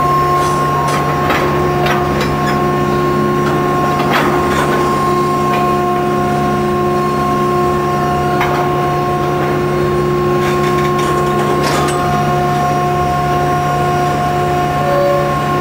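Railcar mover pushing a string of tank cars slowly and continuously in progressor mode: a steady machine hum, with a few short clicks and creaks from the cars' running gear.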